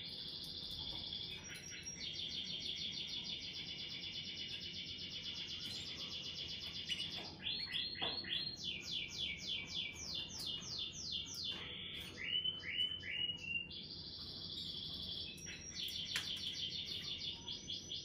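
Domestic canary singing: a continuous song of trills, each a fast run of one repeated note, switching every few seconds to a new trill or to a slower series of falling notes.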